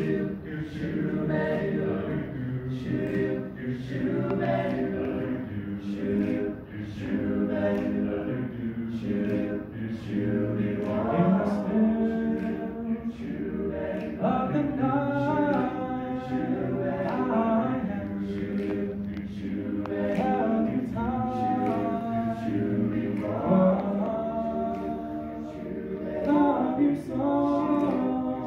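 A cappella vocal group singing in close harmony: a lead voice on a microphone over sustained backing voices, with a steady beat of sharp clicks underneath.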